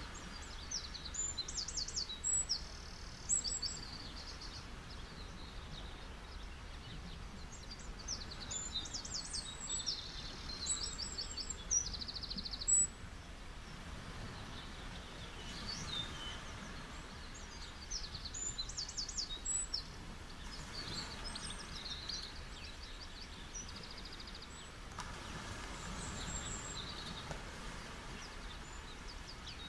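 Birds singing in several bursts of quick, high repeated notes, over a steady hiss and low rumble of ocean waves on a beach.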